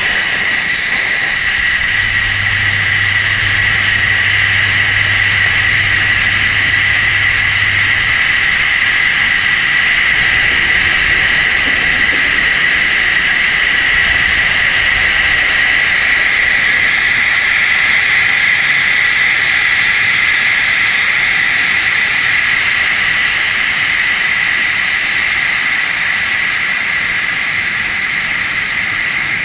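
Brass manual pressure-relief valve on a pressurised solar water-heater tank held open by its lever, venting the tank's pressure in a loud, steady hiss. A low hum sits under it from about two to eight seconds in.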